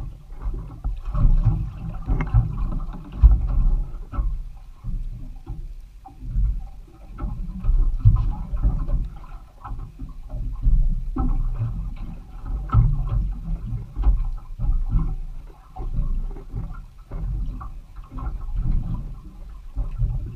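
Wind buffeting the microphone and water slapping against the hull of a small boat at sea, in uneven rumbling swells.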